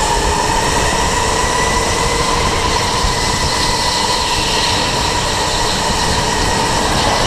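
Electric go-kart running flat out, heard onboard: a steady high motor whine over rumbling tyre and chassis noise.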